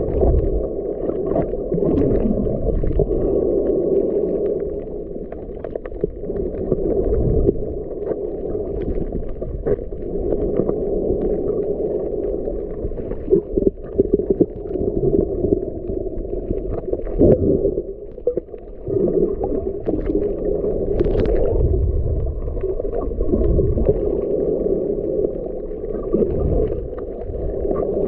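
Muffled underwater noise picked up by a camera below the surface: a steady low rumble and water movement, with scattered faint clicks.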